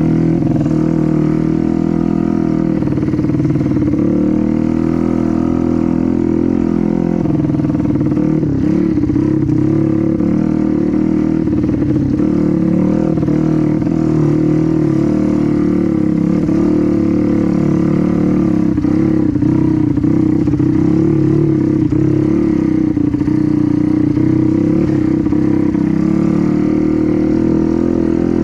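Honda Win trail motorcycle with a swapped-in Yamaha Jupiter four-stroke single-cylinder engine, running under way at a fairly steady engine speed with only small rises and falls.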